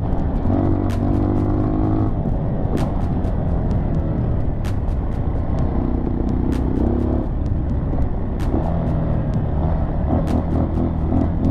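Dirt bike engine running under way on a dirt trail, its note shifting up and down every few seconds with the throttle. Frequent sharp clicks and ticks sound over the engine.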